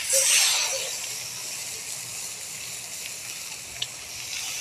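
Mustard-marinated fish fillets sizzling on a hot steel griddle plate: a loud surge of sizzle in the first second as a wet fillet goes down, then a steady sizzle, with a single short click near the end.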